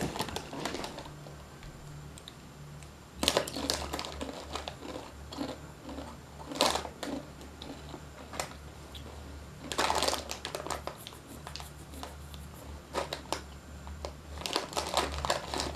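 Plastic snack packet crinkling as it is handled and opened, in irregular bursts, loudest about three seconds in and again near the middle.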